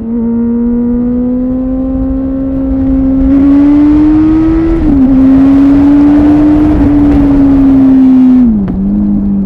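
Kawasaki ZZR 1400's inline-four engine with an aftermarket Delkevic exhaust, under way and pulling up through the revs. Its pitch climbs slowly, drops sharply about five seconds in and climbs again, then falls off near the end, while a rushing hiss rises over it through the middle.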